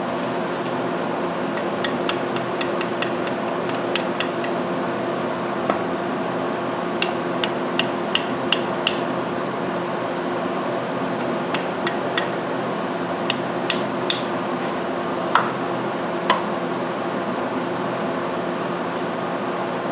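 Steady electrical hum from the welding setup, with several runs of sharp metallic clicks, about five a second, and a few single clicks near the end.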